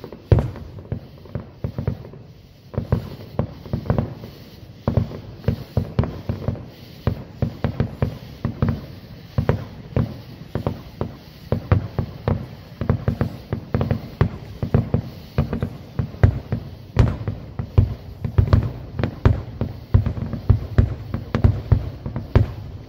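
Fireworks display: aerial shells bursting in a rapid, nearly unbroken string of booms, several a second, with one sharper crack about two-thirds of the way through.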